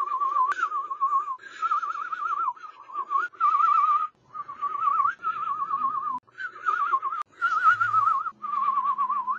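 A man whistling a fast, warbling tone whose pitch wobbles rapidly up and down around one note, in short phrases of about a second each separated by brief breaks.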